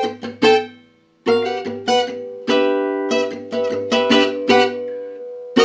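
Acoustic guitar playing a gypsy jazz rhythmic phrase that alternates between E minor and B7. Short picked notes come first, then a brief pause about a second in, then ringing, accented chords.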